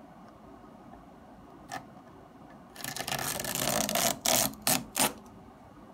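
Clear plastic protective film being peeled off the analyzer's plastic lid: a crackling rip that starts about three seconds in, lasts about two seconds and ends in a few sharp snaps. A single light click comes a little before it.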